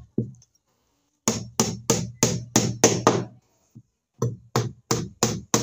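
Claw hammer driving nails into a wooden boat hull: quick, even blows about three a second, in two runs with a short pause in between.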